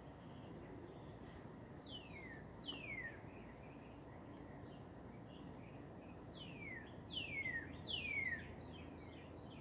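A bird singing: clear whistled notes that slide down in pitch, two about two seconds in and a quick run of three near the end, over a steady low background noise. Faint high ticks repeat about twice a second.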